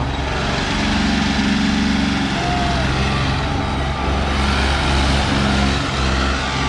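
Turbocharged John Deere 5045 4x4 tractor's diesel engine running steadily under load while pulling a disc harrow.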